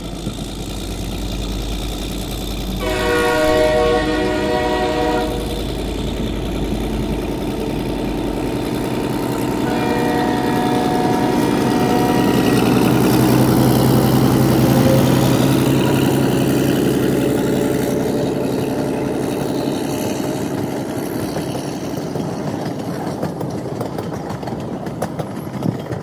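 Passenger train passing close by. It sounds its horn at about three seconds in and again, more faintly, around ten seconds in, while the coaches rumble past on the rails, loudest midway through.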